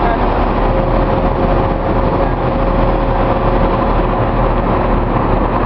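Heavy diesel truck engine running steadily while the truck head manoeuvres to line up with a low-bed trailer, with a thin steady whine joining about half a second in.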